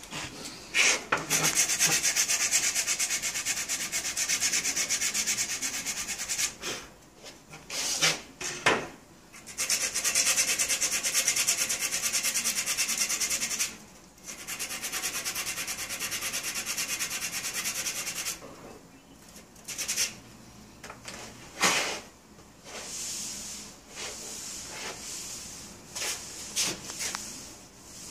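Abrasive rubbing on a wooden furniture part, in three long steady stretches of four to five seconds each with short pauses between, then quieter scattered rubs and a couple of sharp knocks near the end.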